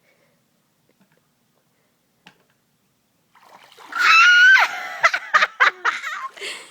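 Near silence for about three seconds, then water splashing and a loud high-pitched yell starting about four seconds in, followed by choppy splashes.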